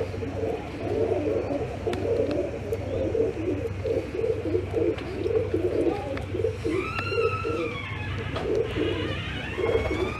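A flock of domestic pigeons cooing continuously, many birds overlapping. A higher, arching call comes twice in the second half.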